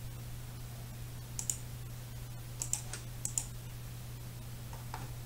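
Computer mouse clicking a handful of times, short sharp clicks, mostly in quick pairs, between about one and a half and three and a half seconds in, over a steady low hum.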